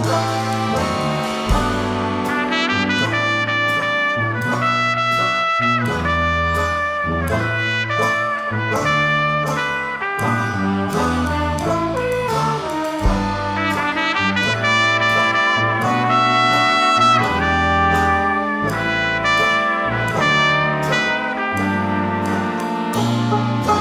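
Background music: a brass band playing traditional jazz, with lead horns over a walking bass line.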